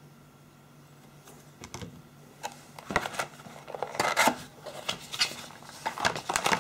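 Cardboard packaging insert of a phone box being handled and pulled open, with sharp clicks and scrapes starting about two and a half seconds in and loudest about four seconds in, then a plastic bag of earphones crinkling as it is lifted out near the end.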